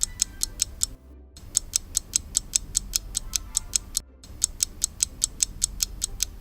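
Countdown-timer ticking sound effect: rapid, even ticks about five a second over a low music bed, breaking off briefly about a second in and again about four seconds in.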